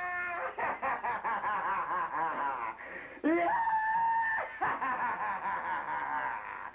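A person laughing in quick, wavering pulses, broken about halfway by one long, high held scream, then laughing again.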